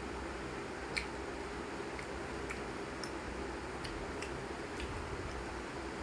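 Mouth sounds of someone chewing food: a few short, sharp clicks at irregular spacing, the loudest about a second in, over a steady background hiss and hum.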